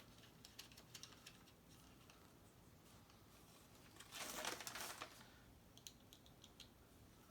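Faint small clicks and taps of a rifle lever lock being handled and fitted through a lever-action rifle's lever, with a brief scraping rustle about four seconds in.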